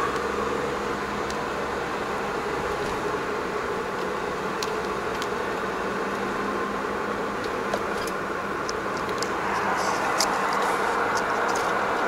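Steady engine and road noise inside a moving vehicle's cab, with scattered light clicks and rattles. It grows a little louder about ten seconds in.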